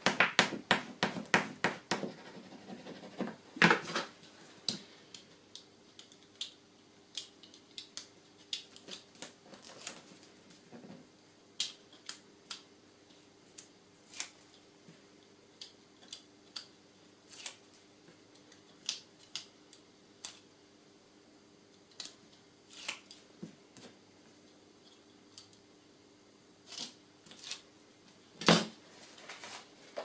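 Snap-off craft knife blade scratching and picking at white strips on a paper card, with fingers rubbing the strips down. A dense run of short scrapes and clicks in the first two seconds, then scattered single scratches, with a louder knock near the end.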